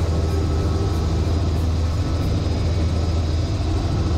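Helicopter cabin noise in flight: the rotor and engine make a steady low drone that fills the cabin, with a faint high whine above it.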